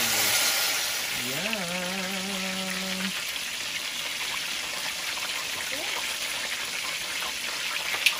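Coconut milk pouring from a carton onto sweet potato chunks in a stainless steel saucepan, a soft splashing gush loudest in the first second. A short hummed voice tone a second or so in, and a sharp click near the end.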